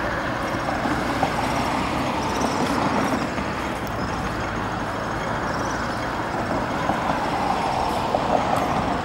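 Steady road traffic noise: a continuous, even rush of passing vehicles with no single event standing out.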